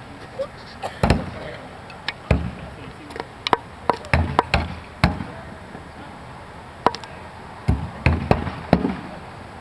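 Thrown blades striking targets, one after another: a string of sharp, irregular thwacks, some in quick clusters.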